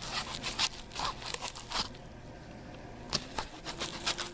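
Close scratchy rustling and scraping of the camera being handled and its wet lens wiped, a run of quick irregular rubs with a quieter pause about two seconds in.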